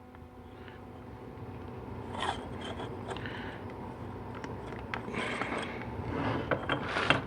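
Light clicks, taps and scrapes of small transmission parts and tools being handled: a seal sizer taken from its kit and white hard sealing rings worked onto a 4L80E input shaft. The clicks cluster about two seconds in and again near the end.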